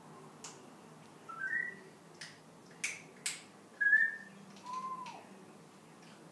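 African grey parrot making short whistles and sharp clicks: a quick rising run of whistled notes, a few clicks, another short whistle, then a lower note that falls away.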